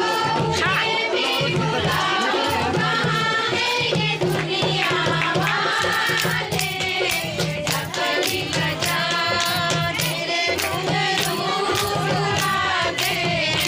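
Upbeat Pahari folk dance music: singing over a steady, regular drum beat with crisp percussion strokes.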